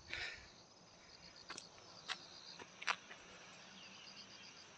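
Faint insect trilling, a fast, even pulsing high note, with a few soft clicks over it.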